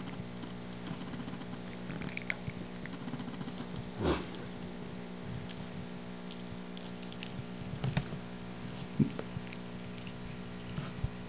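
Miniature pinscher puppy chewing and crunching popcorn, heard as scattered small clicks and crackles, with one short, louder noise about four seconds in. A steady low hum runs underneath.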